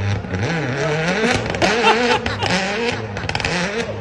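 Spectators shouting over a car engine that revs up in the first second.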